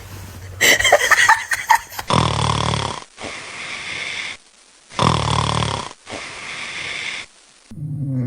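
A person snoring: two loud snores on the in-breath, about three seconds apart, each followed by a softer breath out.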